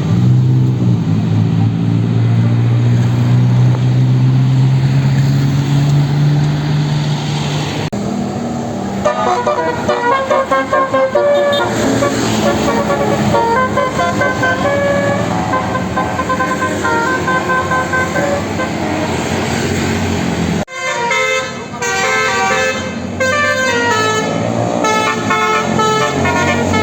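A bus's telolet horn, a multi-tone air horn, playing quick melodic runs of short notes. It comes in about 8 seconds in over the low, slowly rising note of the bus engine pulling away. The sound cuts out briefly about two-thirds of the way through, then the horn tune carries on.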